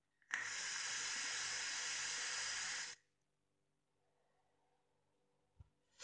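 Steady, airy hiss of a long draw on a Wotofo Sapor RTA rebuildable tank atomizer, lasting about three seconds: air drawn through its airflow over the firing coil. It stops suddenly and is followed by a faint exhale.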